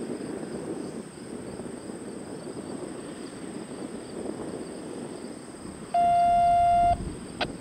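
A steady electronic beep lasting about a second comes in about six seconds in, followed shortly by a single sharp click, over a steady low background rumble.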